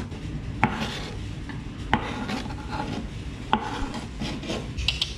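Chef's knife chopping mango on a plastic cutting board: three sharp knocks of the blade on the board, each more than a second apart, with rubbing and scraping in between. Near the end the blade scrapes the diced pieces across the board into a bowl.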